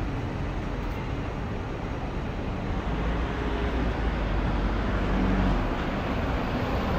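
Street traffic running past, with a low engine rumble that swells as one vehicle passes close about five seconds in, then eases.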